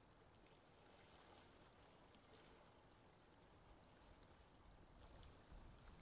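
Faint lake ambience: water lapping gently with small soft ticks, and a low rumble of wind that builds slightly near the end.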